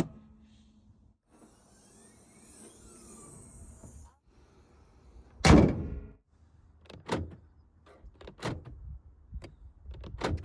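Toyota 4Runner sounds: a faint, brief electric whir with shifting pitch, then one loud door thunk about five seconds in, followed by several lighter clicks and knocks.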